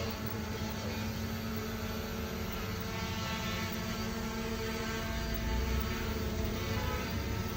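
K611 Max quadcopter drone's motors and propellers running at a steady hum, with an even pitch.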